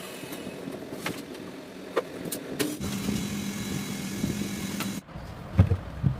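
A few sharp knocks, then a small motor humming steadily for about two seconds and cutting off abruptly, followed by two low thumps.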